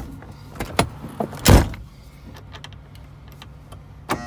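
A few sharp knocks and thumps from handling around a semi-truck's cab door, the loudest about a second and a half in, over a faint steady low hum.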